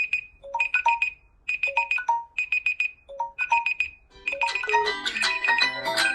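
Smartphone alarm or timer tones: a short, bright phrase of chiming notes repeats about every second and a half, then about four seconds in a fuller, faster melodic alarm tone begins.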